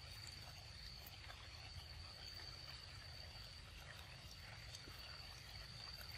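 Faint outdoor ambience: a steady high-pitched insect drone, with soft scattered clicks from a young macaque biting and chewing ripe mango.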